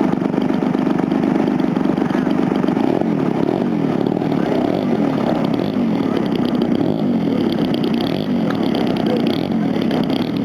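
Engine of a large radio-controlled stunt airplane running continuously, its pitch rising and falling over and over from about three seconds in as it flies through manoeuvres.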